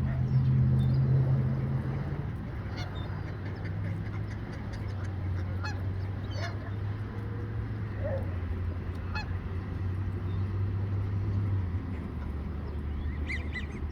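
Geese honking now and then, single short calls spread across several seconds, over a steady low hum that is loudest in the first two seconds.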